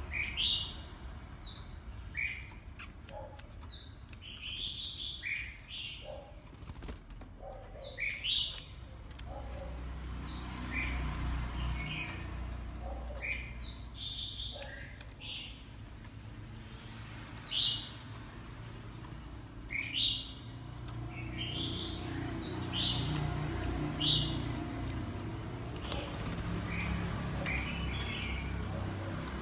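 Oriental magpie-robin singing: a string of short, clear whistled notes, many sliding sharply down in pitch, repeated over and over with short gaps, over a low steady background rumble.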